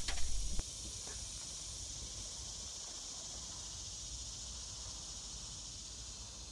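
Steady outdoor insect chorus, an even high-pitched hiss of crickets or cicadas, after a brief low rumble in the first half second.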